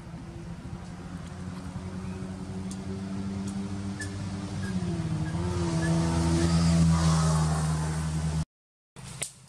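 A motor vehicle's engine running steadily and growing louder as it approaches, with a brief wobble in pitch about halfway through. It cuts off suddenly near the end, followed by a single click.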